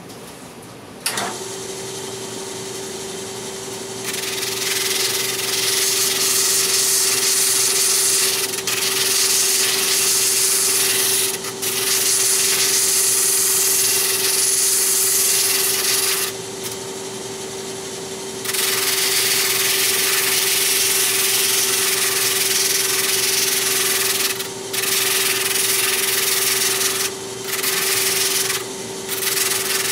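Large drum sander switched on about a second in, its motor humming steadily. Then comes the loud hiss of a wood piece pressed against the spinning sanding drum, broken by several short pauses as the piece is lifted off. This is rough-shaping of intarsia pieces on a sanding shim.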